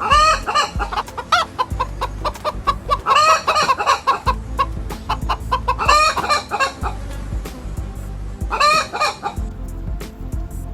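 Chickens clucking, with loud bursts of calls at intervals of about three seconds.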